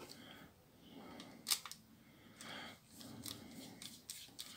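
Faint handling sounds of a small screwdriver and a plastic phone case: a sharp click about one and a half seconds in, then a few soft ticks and rustles as the screwdriver is set into a tiny screw at the top of the phone.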